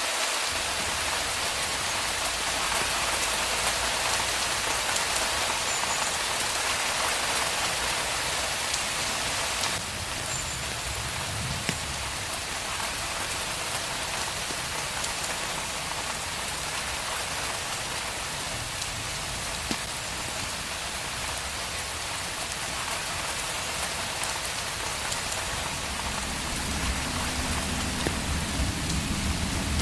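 Steady rain falling on a surface, an even hiss of many drops. A low rumble builds near the end.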